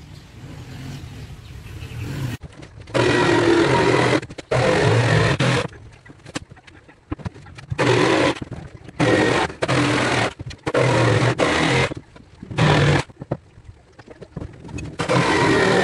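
Handheld electric power tool on plywood, run in about nine short bursts with brief pauses between, starting about three seconds in.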